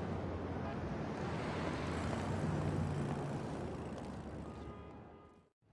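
City street traffic ambience: a steady rumble and hiss of passing vehicles that fades out about five seconds in.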